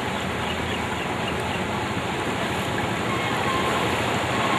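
Floodwater rushing across a road: a steady, even rush of water.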